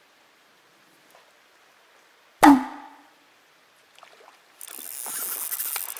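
A single sharp knock about two and a half seconds in, then from near the end the splashing of a hooked trout thrashing at the water's surface.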